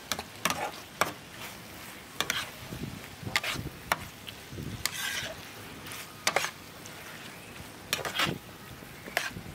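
Metal spatula stirring a thick, saucy stir-fry in a wok, making irregular scrapes and clacks against the pan about once a second, over a light frying sizzle.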